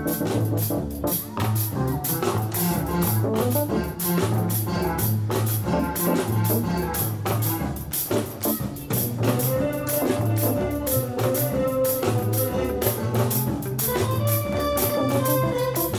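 Live band playing an instrumental jam: drum kit keeping a steady beat under a repeating bass line, with electric guitar, keyboard and saxophones. Held notes come in over the groove from about nine seconds in.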